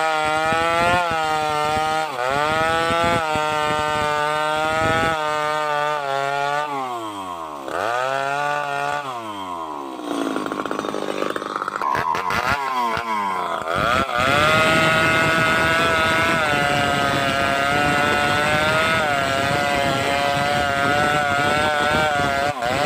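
Two-stroke chainsaw revving up and dropping back toward idle several times, then held at high revs for the second half, its pitch wobbling slightly.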